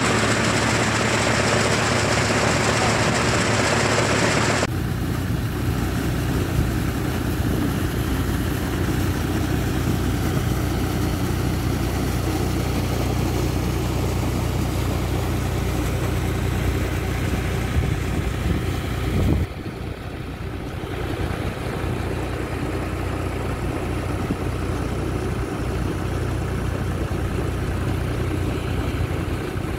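An engine running steadily at constant speed. Over the first four and a half seconds a loud hiss sits over it, then stops abruptly.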